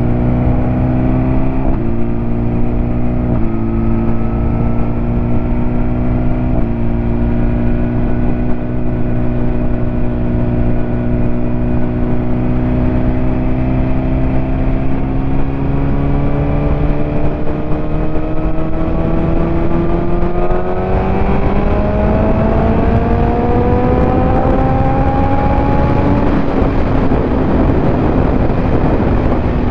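BMW S1000RR's inline-four engine running under way, its note holding fairly steady with a few small shifts, then rising as the bike speeds up over the second half before levelling off near the end. Wind noise on the microphone grows as the speed rises.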